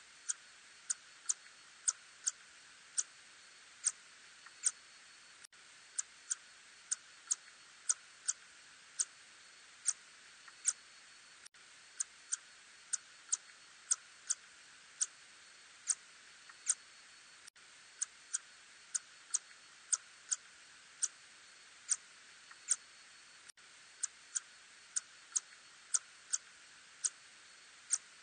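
Ussuri tube-nosed bat calls, heard as sharp, short clicks at uneven spacing, about one to two a second, over a steady hiss.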